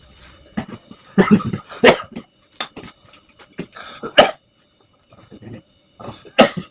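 Elderly man coughing in separate fits: a cluster of coughs about a second in, a sharp single cough just past four seconds and another near the end. The cough of a lung complaint with shortness of breath.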